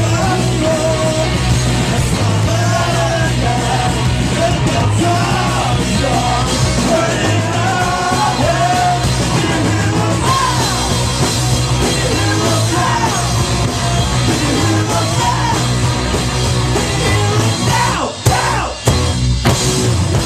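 Country-punk rock band playing loud amplified music, with shouted, yelled singing over a steady driving bass. The sound cuts out sharply twice for a moment near the end.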